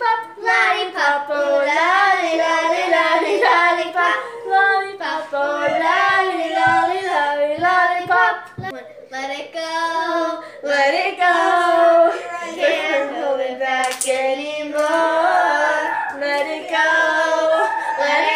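A girl singing unaccompanied in a high voice, long wavering notes with few breaks, with a few soft low thumps about six to nine seconds in.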